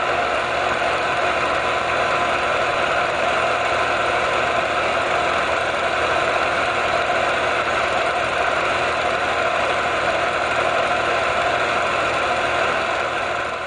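Film projector running steadily, fading out near the end.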